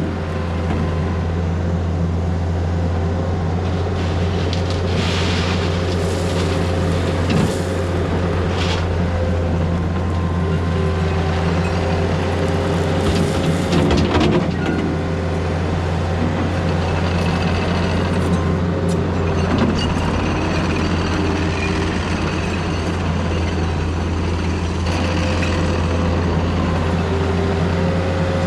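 Diesel engine of a Takeuchi earthmoving machine running steadily under work, with a few knocks of the machine working now and then.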